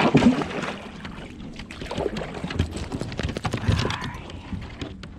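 Irregular knocks and clatter on the hull of a plastic sit-on-top kayak, a Perception Tribe 11.5, with water sloshing, a couple of heavier thumps among them.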